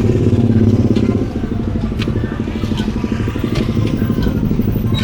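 A motorcycle engine running with a rapid, even throb, a little louder in the first second, with a few light clinks over it.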